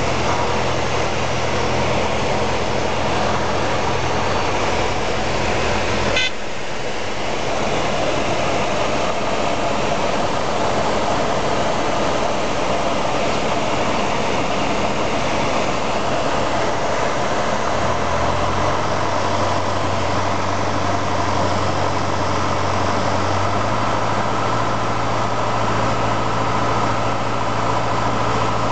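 Beagle Pup light aircraft's piston engine and propeller running steadily, heard from inside the cabin with airflow noise, on the landing approach. A sharp click comes about six seconds in, after which it runs slightly quieter, and the engine note shifts in pitch twice in the second half.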